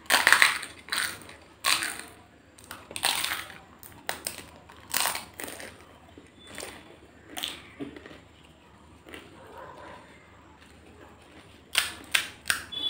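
Crisp fuchka (pani puri) shells crunching as a mouthful is bitten and chewed close to the microphone, in irregular bursts that are loudest at the start. Near the end, a quick cluster of sharp cracks as a fresh puri shell is broken open with the fingers.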